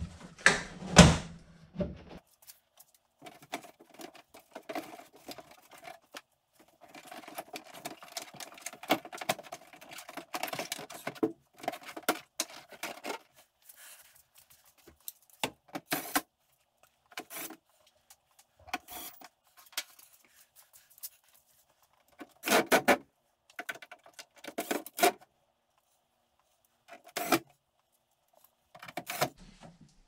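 Plastic casing of a portable air conditioner being fitted back together, with its screws driven in by a cordless drill/driver. There are clicks and knocks from the plastic panels, and short runs of the drill, several close together in the second half.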